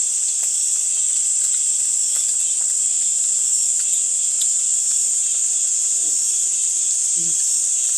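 A steady, high-pitched insect chorus chirring without a break, with a few faint clicks.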